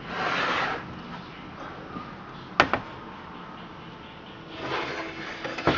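Handling noise around the chainsaw: a brushing rustle, one sharp knock about two and a half seconds in, and more rustling near the end. The engine is not running.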